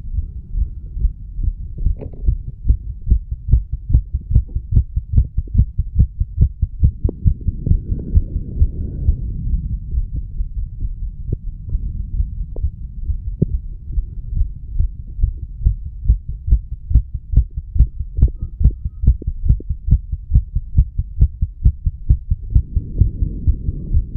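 Human heartbeat heard over the mitral valve area of the chest: a steady, even run of low lub-dub thuds, with a soft rushing noise swelling around eight seconds in and again near the end. Recorded after smoking nicotine and cannabis, which the owner says changed the heart rate and beat sound a little.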